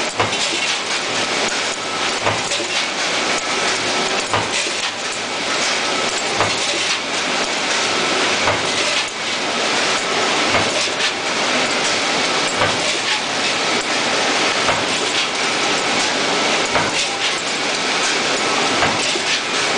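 Press scrap conveyor running, with a continuous metallic clatter of small stamped steel scrap pieces and irregular dull thumps about once a second.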